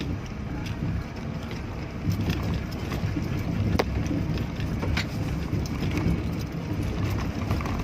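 Old 4x4 running in four-wheel drive at low speed over a bumpy dirt track: a steady low engine and drivetrain rumble, with a few sharp knocks and rattles from the body over the bumps.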